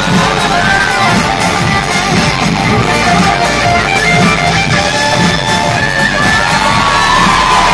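Loud live pop-rock concert music from a band, with guitar prominent over a steady pulsing low end.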